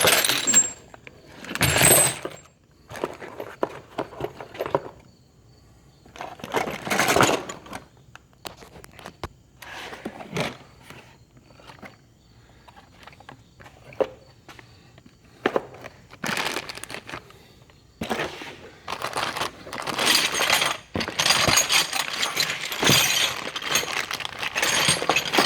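Tool-set packaging being handled and opened: irregular bursts of crinkling and rustling from plastic and cardboard, thickest over the last six seconds.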